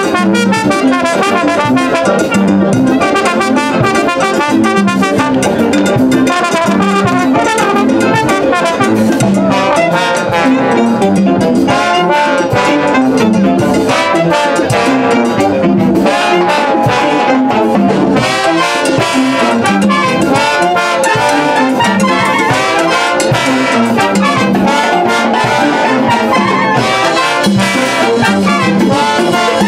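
A large brass band of clarinets, saxophones, trumpets, trombones and sousaphones playing a tune together, over a steady repeating bass line.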